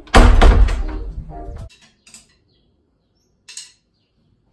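A door in a flat thudding open with a heavy low thump that fades over about a second and a half, followed by a couple of faint clicks.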